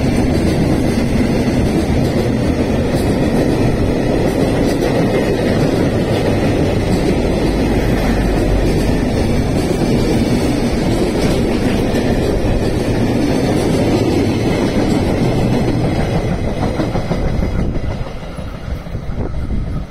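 A freight train's container wagons rolling past on the rails, a loud steady noise of wheels on track. It falls away sharply near the end as the last wagon passes and recedes.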